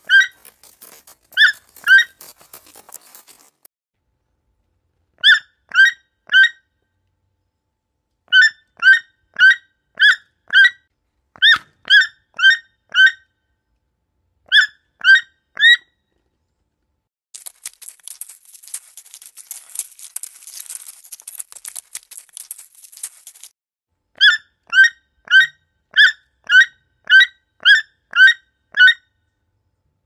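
Toucan calls: short squeaky yelps, about two a second, in runs of two to ten with pauses between. In the middle a crackling rustle runs for about six seconds with no calls.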